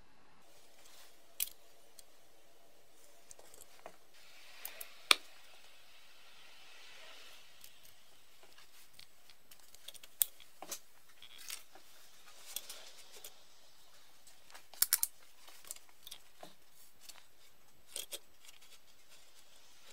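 Scattered sharp metallic clicks and taps from a brass carbide bicycle lamp being handled, the loudest about five seconds in, with a soft hiss between about four and seven seconds.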